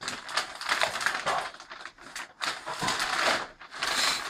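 Paper bag rustling and crinkling in irregular crackles as a cat shifts and scrambles inside it and climbs out.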